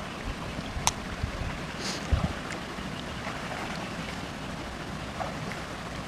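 Wind rumbling on the microphone over a low outdoor hiss, with faint water sloshes and splashes from a man wading into a shallow muddy pond, and a couple of light knocks in the first two seconds.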